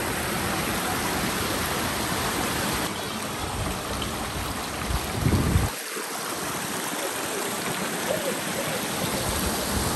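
Shallow rocky stream running over stones: a steady hiss of flowing water, with a brief low rumble about five seconds in.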